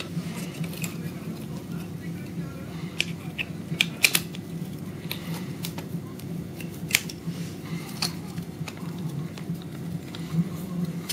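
Scattered sharp metal clicks and taps as a bolt with a plastic sleeve is handled and pushed through the steel bracket of a freeline skate's caster wheel, over a steady low hum.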